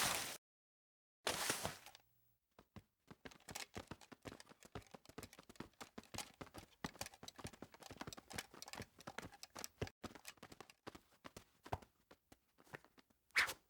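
A cartoon sound effect: two short hits, then a long run of rapid, irregular light taps and clicks lasting about ten seconds.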